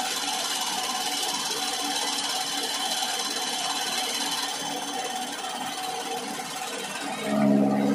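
Motor-driven chaff cutter running steadily as green fodder stalks are fed in and chopped, a whirring machine sound with steady high tones. A deeper hum swells briefly near the end.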